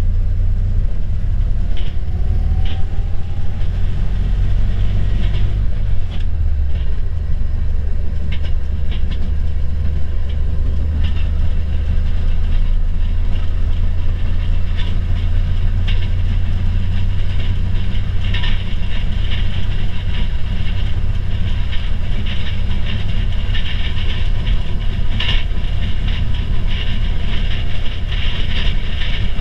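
1969 Fairmont railcar heard from inside its cab as it runs along the track: a steady low drone, with wheels clicking and rattling over the rails. The clatter grows busier in the second half.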